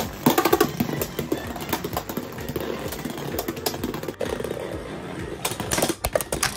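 Two Beyblade X spinning tops whirring and rattling as they circle a plastic stadium floor, with repeated sharp clicks and knocks as they clash, the loudest cluster of hits near the end.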